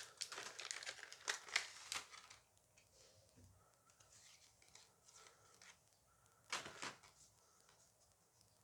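Plastic wrapper of a Dice Masters booster pack crinkling and tearing as it is opened, busiest in the first two seconds, with a short crinkle again about six and a half seconds in.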